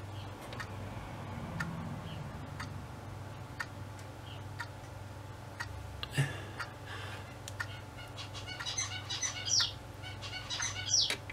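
Faint ticks about once a second, like a clock, over a low steady hum. From about seven seconds in comes a run of quick, high, bird-like chirps.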